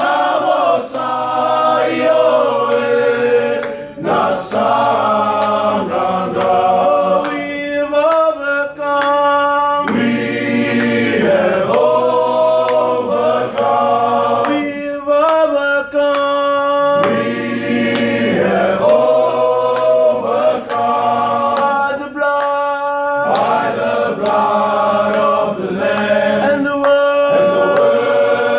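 A group of men singing a hymn unaccompanied in several-part harmony, holding long notes.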